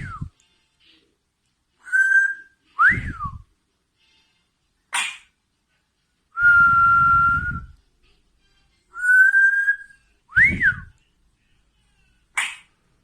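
Parrot whistling: a string of short clear whistles, some swooping up and back down, others held on one note, the longest held for over a second. Two short raspy squawks fall between them, one about halfway and one near the end.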